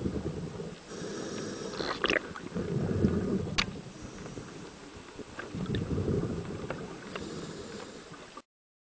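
A scuba diver's breathing through a regulator heard underwater: a rush of exhaust bubbles roughly every three seconds, with a few faint clicks in between. The sound cuts off suddenly near the end.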